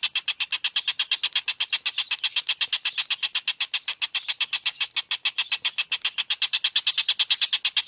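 Tengkek buto kingfisher giving a continuous, rapid chattering call of sharp, high notes, about ten a second.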